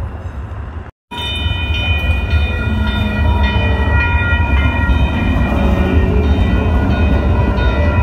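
Sacramento RT light rail train passing close by: a steady low rumble with a whine of several high tones over it. The sound drops out for a moment about a second in, then the train runs by steadily.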